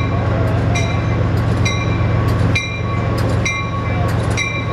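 Amtrak Pacific Surfliner passenger train rolling slowly past, with a steady low drone from its equipment and a bell ringing about once a second. The drone eases slightly about halfway through.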